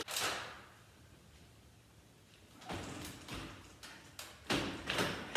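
Metal screw-drive rail of a garage door opener scraping and knocking against its mounting bracket as it is worked loose and slid out. The sounds come in several separate bursts, a short one at the start, another about three seconds in, and a run of knocks near the end.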